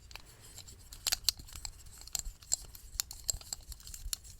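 Close-miked handling of art supplies: an irregular scatter of crisp clicks and crinkles, about a dozen, the strongest in the middle.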